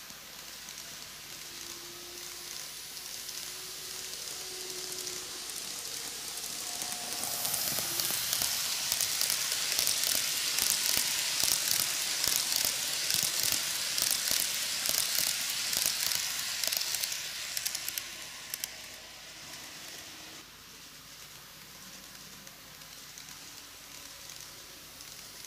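N-gauge model train running on superelevated track: a KATO ED79 electric locomotive hauling ten coaches. The clicking, hissing rattle of the wheels on the rails grows as the train approaches, is loudest for several seconds while the coaches pass close by, then fades to a faint rattle as the train runs off around the far curve.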